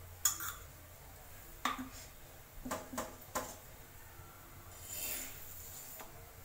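Metal kitchen utensils clinking against a bowl and an iron tawa: a handful of sharp clinks over the first three and a half seconds, then a brief scraping hiss about five seconds in as a flat metal spatula is worked against the tawa under a paratha.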